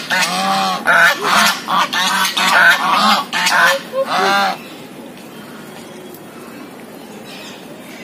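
Large waterfowl, geese or swans, honking repeatedly in quick succession for about four and a half seconds, then falling silent.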